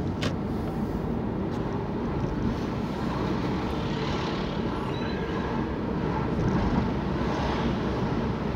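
Road and engine noise heard inside a moving car's cabin: a steady low rumble of tyres and engine while driving, with one light click just after the start.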